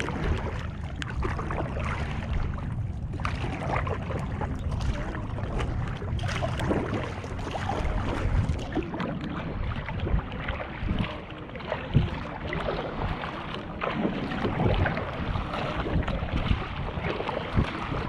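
Kayak being paddled: a double-bladed paddle dipping and splashing and water rushing along the hull, with wind buffeting the microphone.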